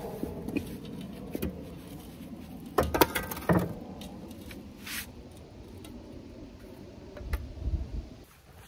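Shovel knocking against a wheelbarrow and scraping through sand, with a cluster of sharp clanks about three seconds in and a brief scrape a couple of seconds later. A few low thumps follow near the end.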